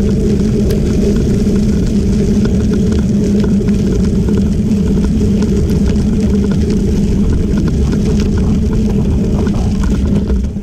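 Steady low rumble of wind and tyre noise from travelling along a gravel trail, sped up to double speed; it begins to fall away at the very end as the ride slows for a road crossing.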